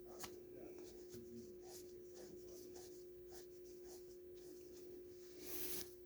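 Tube cutter being turned around a 1/2-inch copper pipe: faint, irregular scraping and ticking as the cutting wheel scores its groove in the pipe, with a louder scrape near the end.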